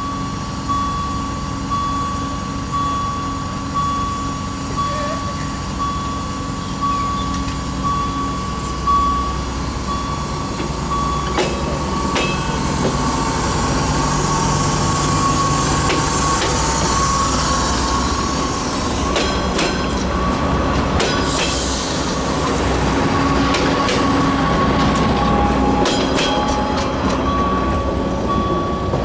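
Stadler GTW 2/6 diesel multiple unit pulling away from a station and running close past: a low engine drone, then a rush of noise with the wheels clicking over the rail joints as the cars go by. A repeated beeping sounds over the first several seconds.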